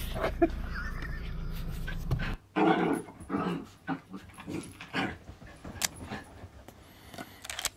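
Steady low car-cabin rumble that cuts off suddenly a couple of seconds in, then a small dog making a string of short, irregular noises as it plays on a sofa.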